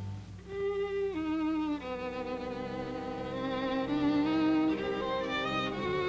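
Film score music: a bowed violin plays a slow melody of long held notes over a low sustained accompaniment.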